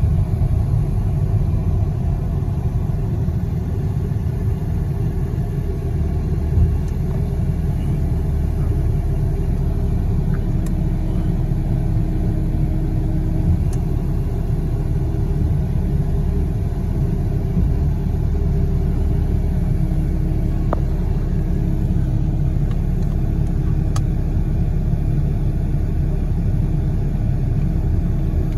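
Steady low rumble inside a car's cabin: the car's engine running while it waits and inches forward in traffic. A few faint ticks can be heard over it.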